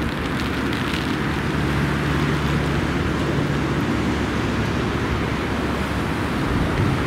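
Steady rush and low rumble of gusty storm wind, with the distant jet noise of an airliner on final approach mixed in.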